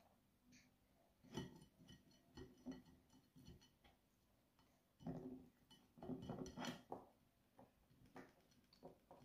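Faint, scattered clinks and clicks of a plastic spoon against a plate as a baby is spoon-fed.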